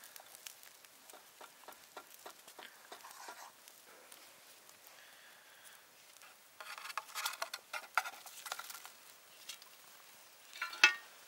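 Butter crackling quietly as it melts in an aluminium mess tin over charcoal, with light spatula scraping. About six and a half seconds in, charred green onions (negi) slide in from another tin with a louder rattling, crackling rush, and a sharp knock comes near the end.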